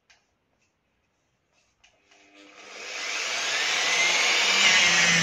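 Electric rotary polisher with a foam pad starting up about two seconds in, its motor whine rising as it spins up to about 1600 rpm, then running steadily as it buffs polishing compound into the varnished wooden kayak deck. The pitch dips slightly near the end.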